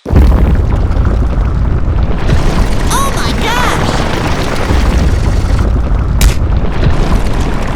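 Loud, continuous low rumbling of an earthquake sound effect, cutting in suddenly, with a few short wavering high sounds about three seconds in and a sharp crack a little after six seconds.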